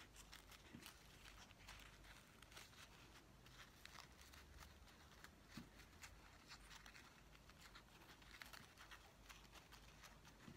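Near silence, with faint scattered rustles and small clicks of fingers handling a green ribbon flower and pressing a bead into its centre.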